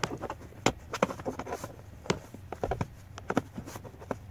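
Plastic glove-box stop tab and glove compartment being worked free by hand: irregular sharp plastic clicks, taps and knocks with some rustling.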